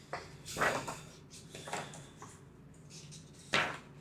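Pages of a paper rule booklet being turned and handled: three short rustles, the last, near the end, the loudest.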